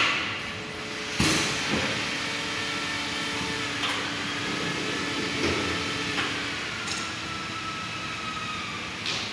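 High-frequency PVC welding machine working: sharp pneumatic air hisses, loudest at the start and about a second in, then lighter hisses and clunks every second or two over a steady machine hum.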